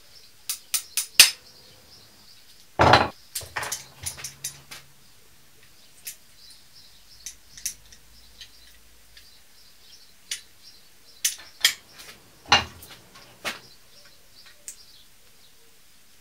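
Small hammer tapping a corroded brake pipe fitting held in locking pliers to knock out the leftover stub of old pipe: four quick, sharp metallic taps in the first second or so. After that come scattered heavier knocks and metal clinks, the loudest about three seconds in and again near twelve and a half seconds.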